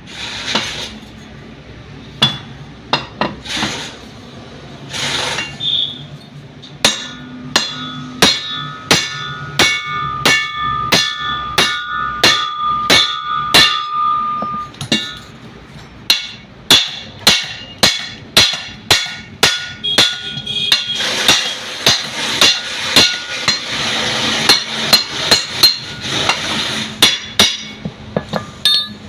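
Steel hammer striking the yoke of a Mahindra Bolero propeller shaft to change its worn universal-joint cross, which had caused a knocking while driving. The blows come in a long series, roughly one to two a second, each with a short metallic ring, and there is a brief pause about halfway through.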